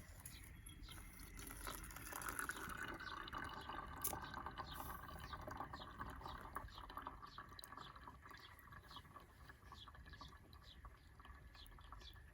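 Water being poured into a cup for coffee, building in the first couple of seconds and tapering off after about eight seconds, with a single click partway through.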